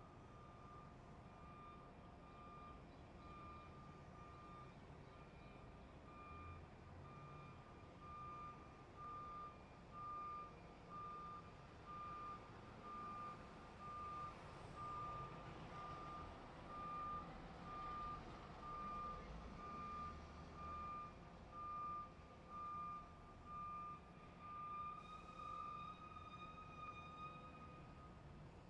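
A vehicle's reversing alarm beeping steadily about once a second, louder in the middle and fainter toward both ends, over a low rumble of traffic.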